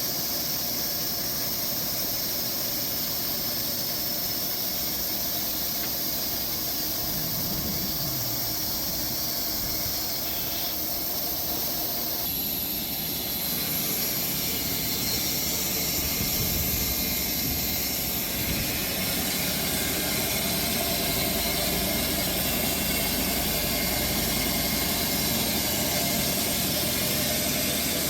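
Bandsaw sawmill running, its blade cutting through a dry Bastogne walnut log with a steady high-pitched hiss over the running of the mill. About twelve seconds in, the sound grows a little louder and brighter.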